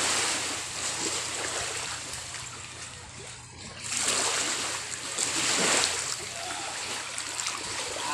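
Shallow water washing and splashing over wet sand in surges, dipping a little after three seconds in and swelling again about a second later.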